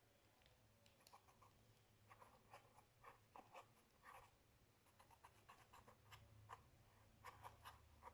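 Slime being pressed and worked by hand, making faint, irregular small clicks and pops, several a second, starting about a second in.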